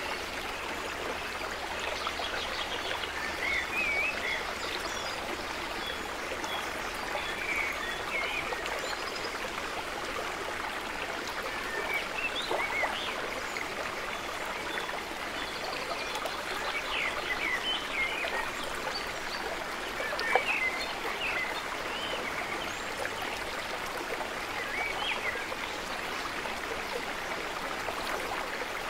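Steady running-water noise like a stream, with many short high chirps scattered through it. One brief sharper knock about two-thirds of the way through.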